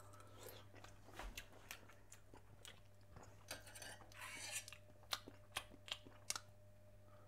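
Faint mouth sounds from tasting hot cranberry sauce off a spoon, then a spoon scraping and clicking against a metal saucepan, with a few sharp clicks in the second half.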